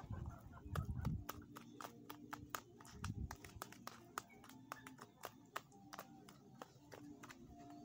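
A fork clicking and tapping against a bowl in quick, irregular strokes while avocado and banana are mashed by hand, with a few dull thumps about a second in and about three seconds in.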